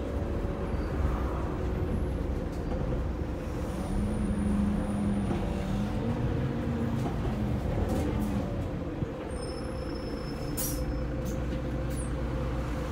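Rear-mounted Mercedes-Benz OM906LA six-cylinder diesel engine of a Citaro O530 bus running steadily, heard from inside the cabin near the back, with a brief sharp noise about eleven seconds in.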